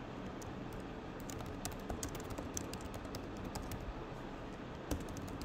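Computer keyboard keys clicking in a quick run of typing over a steady background hiss, with a short second burst of keystrokes near the end.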